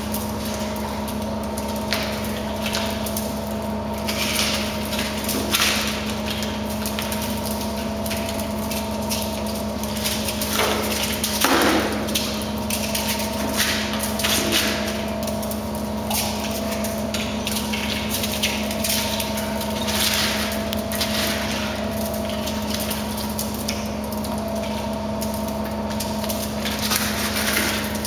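Gentoo penguins pecking and nudging a hard plastic toy on a snowy floor: irregular short knocks and scrapes every second or two, over a steady machine hum with several fixed tones.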